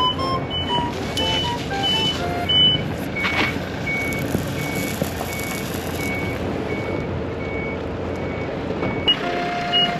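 Heavy machinery's engine running with a backup alarm beeping at a steady pace, about once every 0.7 s, and other beeps at different pitches near the start and end.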